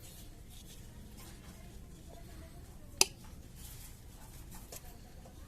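Faint scraping and tapping from small plastic fan parts being handled, with one sharp click about three seconds in, over a steady low hum.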